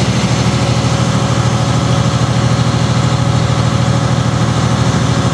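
The engine of the vehicle running the spreader runs steadily with an even low drone while it drives at about 6 mph, heard from inside the cab.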